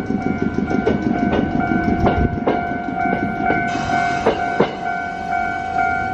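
Level-crossing warning bell ringing in a steady pulse, about two beats a second, from the start. Under it, rail wheels knock over the diamond crossing where the tram and railway tracks cross, a knock about every half second, ending about two-thirds of the way through.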